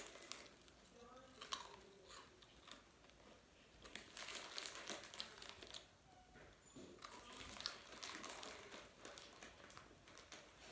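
Faint crunching and chewing of a dry, crunchy snack, with the plastic snack wrapper crinkling in hand.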